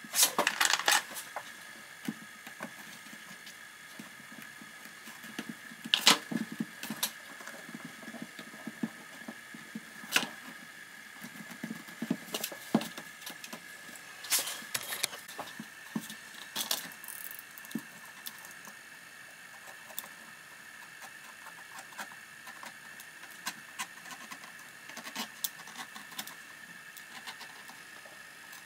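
Handling noise from working on a leather elastic-sided boot and hand tools on a workbench: scattered clicks, taps and short rustles, over a faint steady high-pitched hum.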